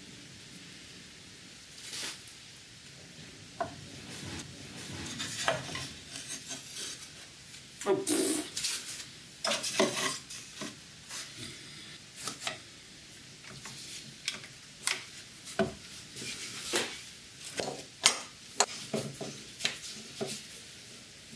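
Small plywood pieces being handled, glued and pressed into place: an irregular run of light wooden knocks, clicks and short scrapes, thickest from about a third of the way in.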